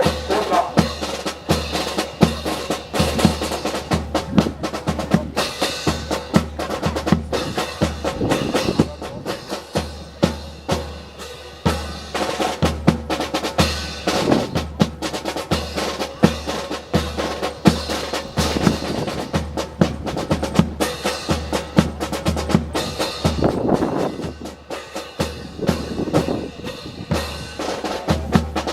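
Marching percussion playing a drum cadence: quick sharp strikes and rolls over a regular low drum beat.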